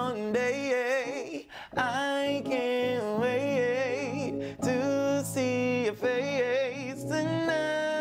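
A man singing in a high head voice with wide vibrato and quick melismatic runs, in phrases broken by short breaths, over sustained electronic keyboard chords.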